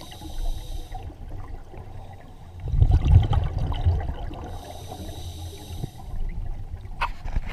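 Scuba diver's regulator breathing underwater: a hissing inhale, then a loud burble of exhaled bubbles about three seconds in, then another hissing inhale. A sharp click near the end.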